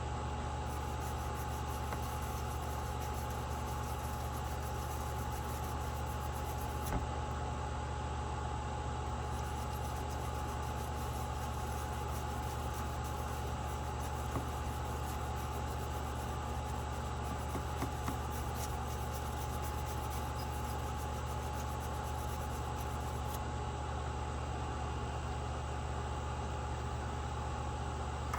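Steady mechanical hum with a constant high whine running unchanged, with a few faint ticks.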